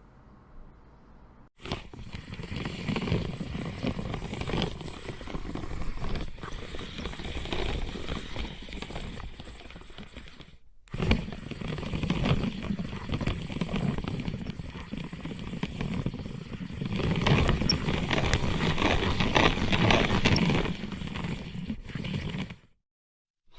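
A spinner spinning: a dense, clicking whir that starts suddenly, runs for about nine seconds, breaks off briefly, then starts again and swells louder before stopping abruptly.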